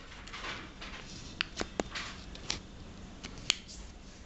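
Origami paper being folded and creased by hand: soft paper rustling with a handful of short sharp clicks and ticks, the sharpest about three and a half seconds in.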